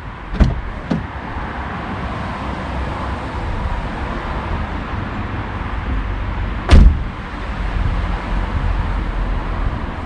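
Hands working on a car's front door trim, with two sharp clunks, one about half a second in and a louder one near seven seconds, over a steady rustling hiss.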